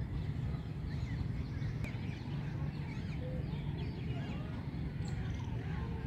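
Many birds chirping together in short, quick calls scattered throughout, over a steady low rumble.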